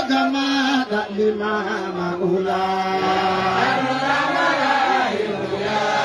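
Men's voices chanting an Islamic devotional chant in praise of God and the Prophet, drawn out in long held notes that rise and fall in pitch, with more voices sounding together from about halfway through.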